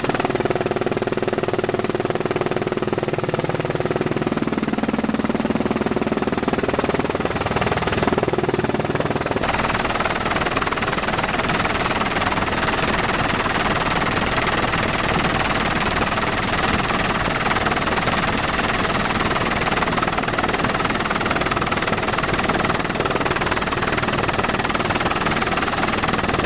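Helicopter in flight heard from inside the cabin: steady rotor and engine noise with a thin, constant high whine. About nine seconds in the sound changes abruptly and becomes fuller in the middle range.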